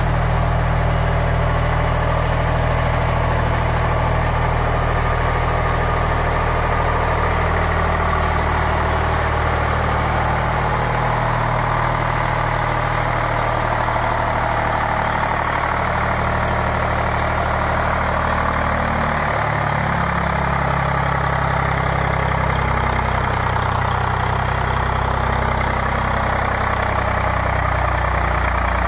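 Eicher three-cylinder diesel engine running steadily while driving a 30 kVA three-phase generator under a water-bath load test. Its note shifts slightly about a third of the way in and again past halfway.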